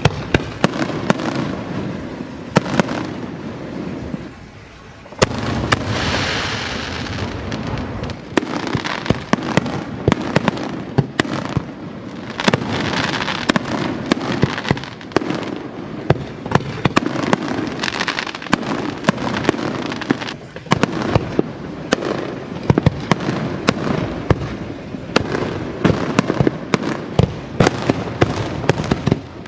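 Fireworks display: rapid, overlapping bangs of aerial shells bursting, with crackling between them and a short lull about four seconds in.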